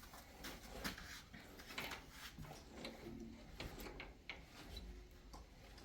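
Faint scattered clicks, taps and light knocks with some rustling, several a second, none standing out.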